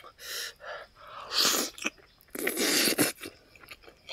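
Close-miked eating of a fried pig's foot with rice: wet chewing clicks and lip smacks, with three loud breathy rushes of air through the mouth, each lasting about half a second.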